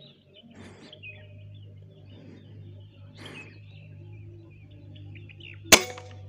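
Small birds chirping in short falling notes, then, about three-quarters of the way in, one sharp air-rifle shot firing a 14-grain A&N lead slug.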